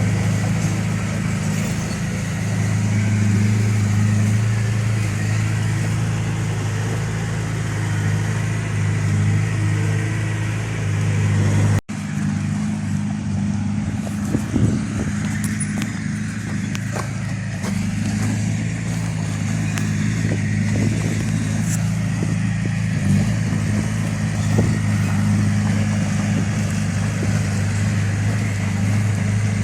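Heavy earthmoving machine's diesel engine running steadily at constant speed, with a momentary break about twelve seconds in and a few short knocks soon after.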